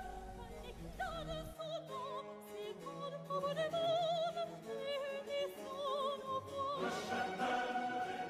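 Operatic singing: a high solo voice with wide vibrato over orchestral accompaniment. The music grows fuller about seven seconds in.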